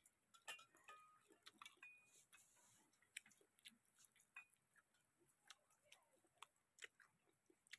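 Near silence with faint, scattered small clicks and taps and quiet chewing: eating by hand from steel bowls and plates, with a few brief faint rings from the steel.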